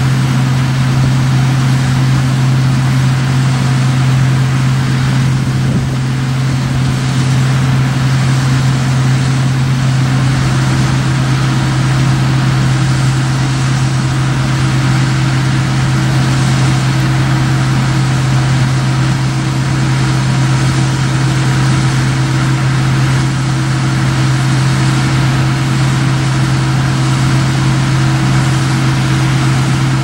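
Case IH 1660 combine running steadily while harvesting soybeans with a 20-foot 1020 head: a steady low drone, with a second, higher hum joining about a third of the way in.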